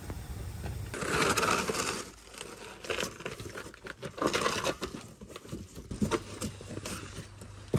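Plastic wrapping and a cardboard box crinkling and rustling in irregular bursts as a new well pressure tank is unpacked by hand. Before that, a low steady hum stops about a second in.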